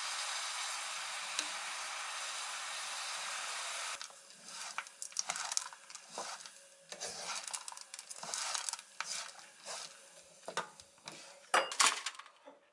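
Rolled oats and nuts coated in syrup sizzling with a steady hiss in a frying pan, then stirred and scraped around the pan in irregular rustling strokes, with a few sharp knocks near the end as the mix is scooped out.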